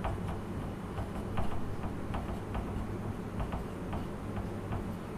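Marker pen tapping and scratching on a whiteboard as numbers are written, in short irregular clicks about two a second, over a faint steady low hum.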